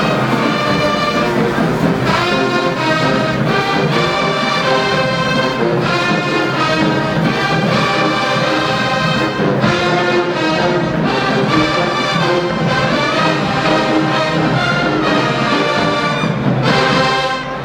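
Marching band playing at full volume, the brass carrying the tune in loud held chords, with a brief break near the end.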